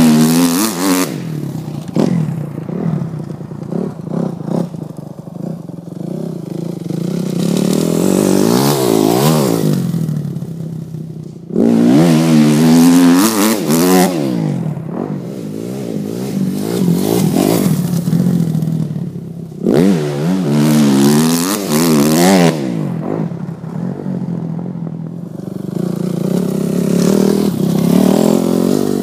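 2007 Kawasaki KX250F dirt bike's 250cc four-stroke single-cylinder engine revving hard and shifting as the bike laps the track. It swells and fades several times as it passes close and pulls away, its pitch rising and falling with each run through the gears.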